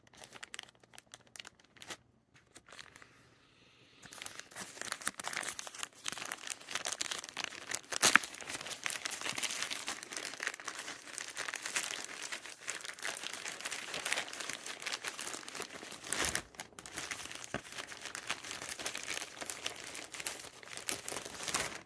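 Packaging being handled and torn open: a few small clicks, then from about four seconds in a steady run of crinkling and tearing, with one sharp loud crack about eight seconds in.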